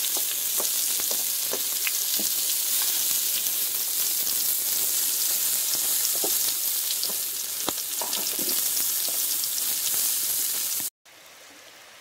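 Kebab skewers and sliced onions sizzling on a metal tray over a campfire: a steady loud hiss with scattered pops. It cuts off suddenly about eleven seconds in, leaving a much quieter background.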